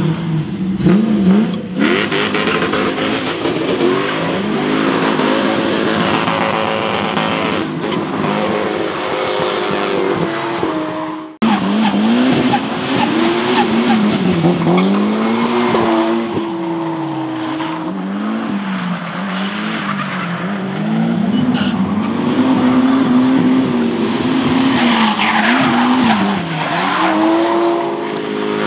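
Drift cars sliding sideways: engines revving hard, their pitch swinging up and down as the throttle is worked, over the screech of spinning tyres. The sound cuts off abruptly about eleven seconds in and picks up again on another car doing the same.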